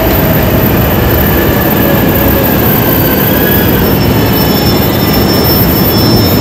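A train running along the tracks: a steady rumble with a few thin, high squealing tones from the wheels on the rails.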